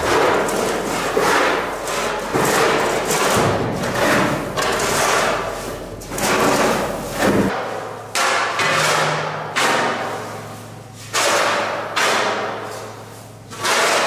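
Scoop shovels scraping across the floor of a steel grain bin and scooping up leftover grain, in repeated strokes about once a second, with a slight echo.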